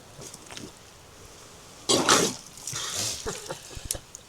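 River water splashing out of soaked footwear in one short, loud gush about two seconds in, followed by a few small drips and rustles.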